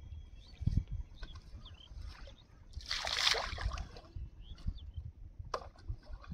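Water splashing at the edge of a pond: one splash lasting about a second, around three seconds in, with a few faint bird chirps.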